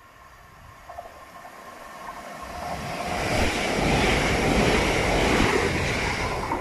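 Southern Class 377 Electrostar electric multiple unit approaching and running past close along the platform. The wheel-and-rail noise builds over the first three seconds and is loudest as the carriages go by.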